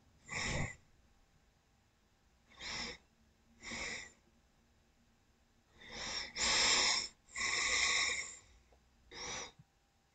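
A person breathing close to the microphone: a series of short noisy breaths, about seven in all, with two longer ones past the middle.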